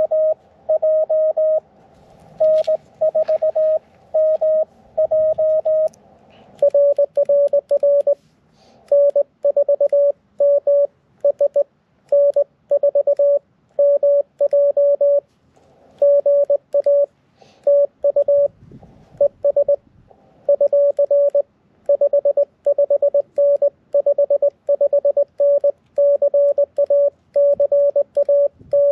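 Morse code (CW) tones from a QRP ham radio transceiver, keyed in dots and dashes: a slightly higher-pitched signal for about the first six seconds, then a slightly lower-pitched one sending steadily for the rest.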